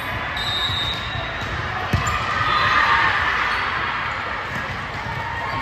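Indoor volleyball rally: a sharp smack of a hit on the volleyball about two seconds in, sneakers squeaking on the hardwood court, and voices of players and spectators rising in the echoing hall.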